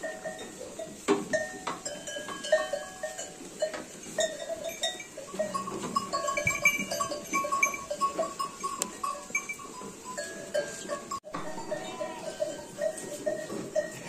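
A flock of young lambs bleating, many short calls overlapping one after another.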